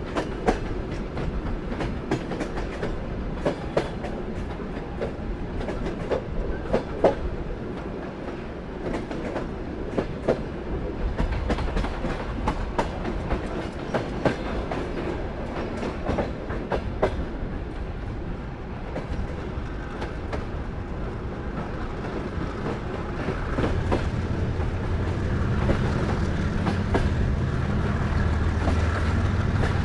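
Soviet-built sleeper train rolling along the track: a steady rumble with irregular clicks and knocks of the wheels over the rails. A low drone grows louder over the last several seconds.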